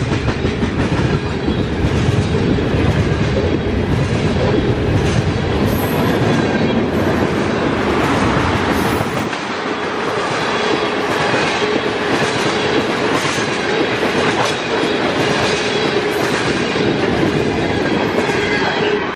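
Freight train of loaded tank cars rolling past at close range, steel wheels clattering over the rail joints with a steady tone above the rumble. The deep rumble thins out about halfway through.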